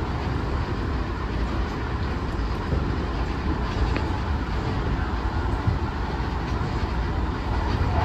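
Electric commuter train running at speed, heard from inside the front car: a steady rumble of wheels on the rails.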